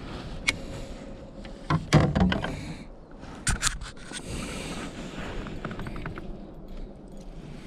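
Several sharp knocks and scrapes, the loudest about two seconds in and another about a second and a half later, over a steady background hiss.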